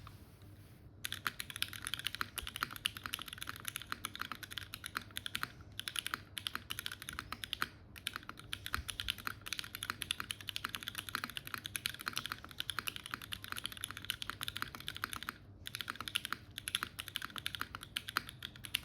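Dune 65 mechanical keyboard with unlubed Cherry MX2A switches in an aluminium plate, typed on quickly in long runs of rapid clacking keystrokes. The typing starts about a second in and pauses briefly a few times, the longest pause near 15 seconds.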